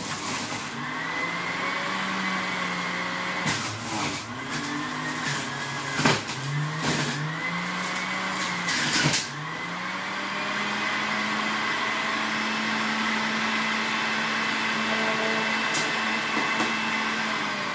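Electric juicer running, its motor hum sagging in pitch each time pieces of lemon with the peel on are pushed down the chute. Sharp knocks and crunches come between about three and nine seconds in. Near the end the motor is switched off and winds down.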